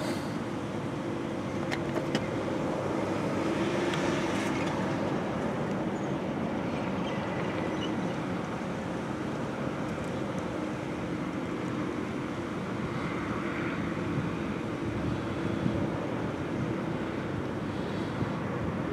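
Steady vehicle and road-traffic noise with a low hum that fades out after the first few seconds; no siren is sounding.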